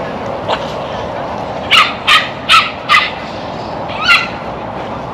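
Sharp dog barks: a single bark, then four in quick succession about a second and a half in, then one more near the end, over a steady background noise.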